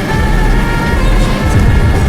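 Background music with held notes over a steady low rumble.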